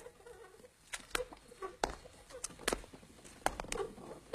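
Scattered light clicks and taps, about half a dozen, irregularly spaced over faint background sound.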